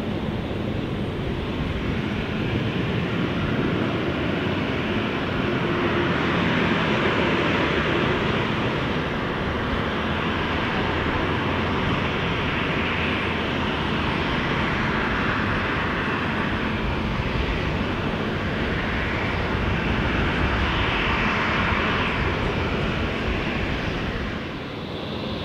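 Boeing 787-9's Rolls-Royce Trent 1000 turbofans at taxi power: a steady jet roar that swells twice.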